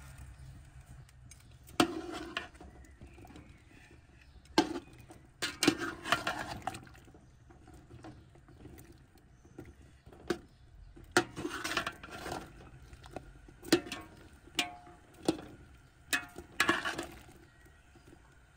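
Metal ladle stirring small whole eggplants in water in a steel pot, knocking and clinking irregularly against the pot's side, with some swishing of the water.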